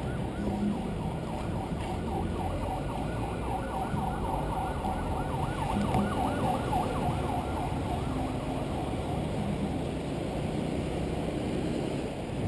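An electronic siren yelping in quick rising-and-falling sweeps, several a second, fading out a little past halfway, over steady road and wind noise.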